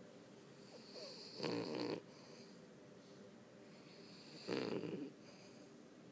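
Snoring: two loud, rasping snores about three seconds apart, each rising out of a softer breath in.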